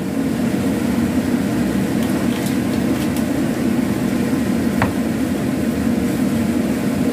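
Steady mechanical hum of a running fan or motor, with a few faint clicks.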